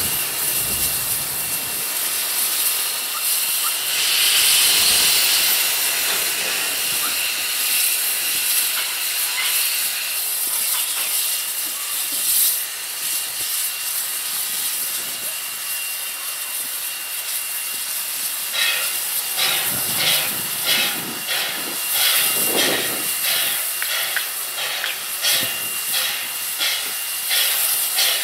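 Steam hissing steadily from standing narrow-gauge steam locomotive NM25. About two-thirds through, a fast rhythmic pulsing joins the hiss.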